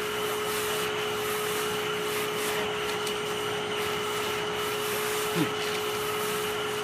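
Vacuum cleaner running steadily with a constant whine over a hiss, its brush attachment being worked through a cat's fur. A brief downward-gliding sound comes through about five and a half seconds in.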